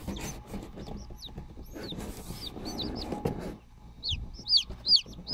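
Newly hatched chicken chicks peeping: short, high, falling peeps, scattered at first and then a loud steady run of about two a second from about four seconds in. A low rustling underneath, strongest in the middle.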